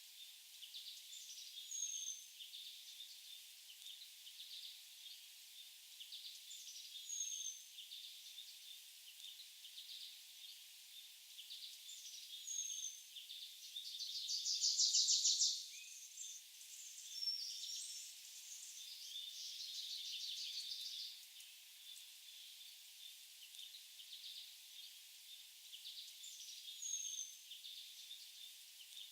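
Forest birds singing: a short, high whistled note repeated about every five seconds, a loud rapid trill about halfway through and a softer trill a few seconds later, over steady faint chirping.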